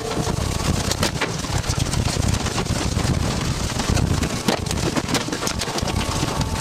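Tornado winds roaring around the armored TIV2 intercept vehicle, with a heavy low rumble and rain and debris pelting its body in many sharp hits.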